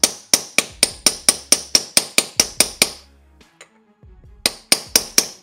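Hammer tapping on a socket to drive a new bearing into a belt tensioner pulley: quick ringing metal-on-metal strikes, about four or five a second, stopping briefly in the middle and then starting again.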